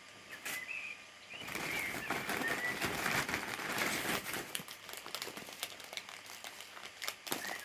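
Small plastic packets of nail crystals being handled: crinkling and rustling, loudest from about a second and a half in until four and a half seconds, with scattered light clicks through the rest.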